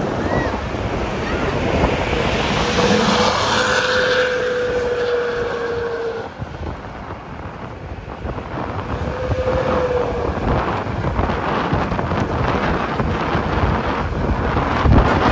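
Wind rushing over the microphone with the steady noise of a moving vehicle. A faint held tone sounds twice, once for a few seconds near the start and once briefly about ten seconds in.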